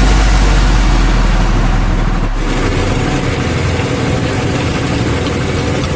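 An engine running steadily with a dense low rumble, under a deep bass hum that fades out over the first two seconds or so.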